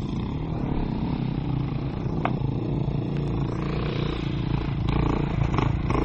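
Enduro dirt bike engine idling steadily, a fast low pulsing, with a single sharp click about two seconds in.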